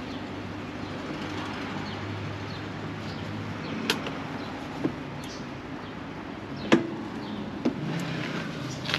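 A parked Honda SH 350 scooter being handled: four sharp clicks and knocks spread over the second half, the third the loudest, over a low steady hum.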